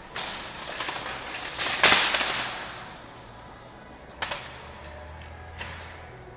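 Shopping basket being pulled from a stack: a rattling clatter for about three seconds, loudest near two seconds in, then two short sharp clicks.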